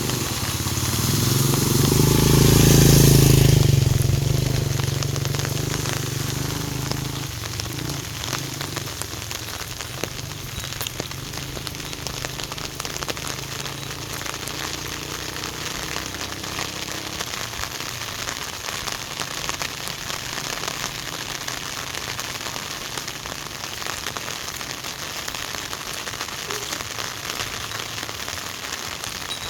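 Heavy rain falling steadily with a patter of drops. In the first few seconds a motorcycle engine passes by, growing louder and then fading away.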